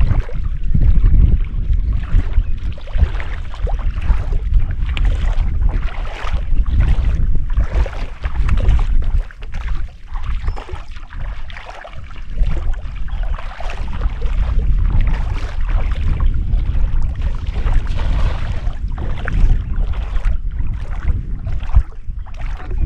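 Wind rumbling and buffeting on the microphone, with water splashing and sloshing throughout.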